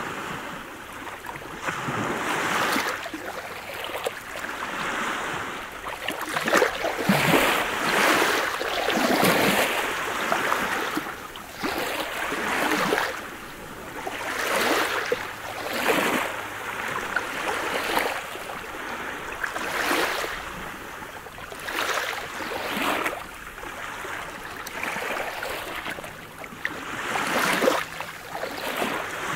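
Small sea waves lapping and washing over a pebble beach, the wash swelling and ebbing every few seconds.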